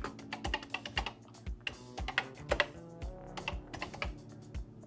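Typing on a Commodore SuperPET's keyboard: a quick, irregular run of key clicks as a short line of code is keyed in.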